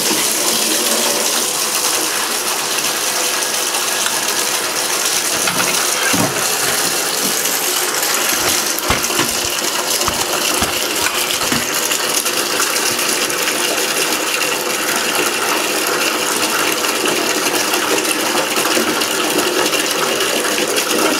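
Water running and splashing steadily into a filled basin, with a few short knocks and clunks about six to twelve seconds in as the hard-plastic housing is put into the water.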